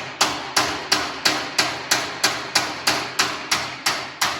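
Hammer blows on a seized steel storm-shelter door hinge, about three sharp strikes a second, each with a metallic ring, to knock the stuck hinge apart.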